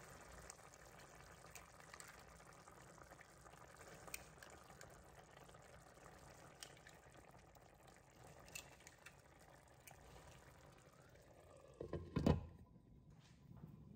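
Tomato sauce simmering and bubbling gently in a pan, with a few sharp clicks as eggs are cracked and dropped in. About twelve seconds in, a glass lid knocks down onto the pan and the bubbling is muffled.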